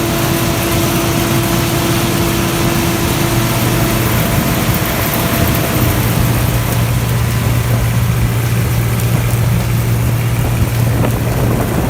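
Large farm machine's engine running steadily, a continuous low engine hum under a dense wash of mechanical noise. A fainter higher tone fades out about four seconds in.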